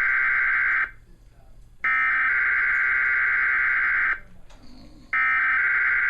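Emergency Alert System SAME header tones from a TV: harsh, buzzing digital data bursts sent three times with a pause of about a second between them. The first burst cuts off about a second in, the second runs through the middle, and the third starts near the end.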